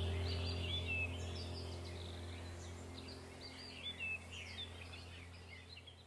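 Birds chirping and warbling in short repeated phrases over a low steady hum, the whole track gradually fading out.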